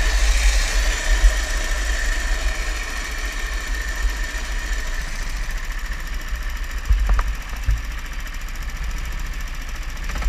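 Go-kart engine running with a rapid low pulsing and a high whine that fades over the first few seconds. A couple of short thumps come about seven seconds in.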